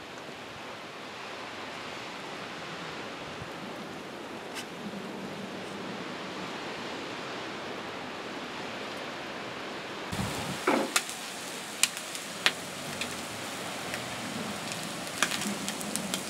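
A steady hiss for about ten seconds, then a thump and scattered sharp crackles and pops: bacon clamped between the high-voltage leads of a microwave oven transformer sizzling and spitting as current passes through it.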